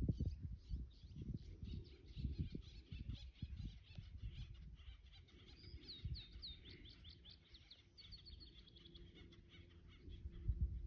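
Songbirds chirping steadily, with a run of quick falling whistled notes about halfway through and a short rapid trill soon after. An irregular low rumble runs underneath.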